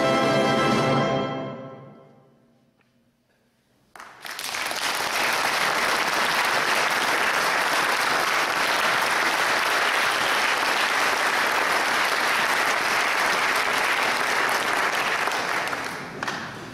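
A brass band's final chord held and dying away, followed by about two seconds of near silence. About four seconds in, the audience starts applauding suddenly, and the applause carries on steadily before fading near the end.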